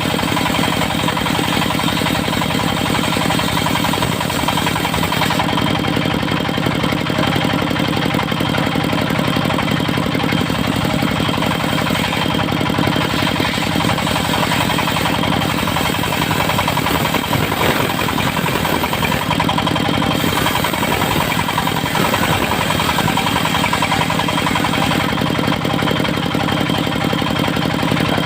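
Engine of a portable circular-saw sawmill running steadily at constant speed.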